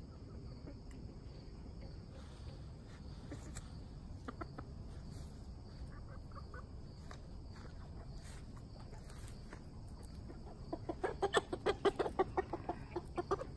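Game fowl chicken squawking in a fast run of loud clucks as it is grabbed, starting about ten seconds in. Before that, only a steady high insect trill over quiet outdoor background.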